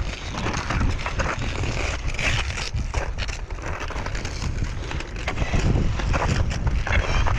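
Crampon footsteps crunching irregularly into glacier snow and ice, over a steady low rumble of wind on the microphone.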